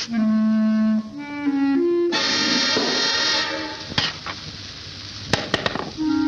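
Orchestral cartoon score led by woodwinds: a held clarinet-like note, then short notes stepping upward, then a loud full chord about two seconds in. Near the end come a few sharp knocks before a new held note starts.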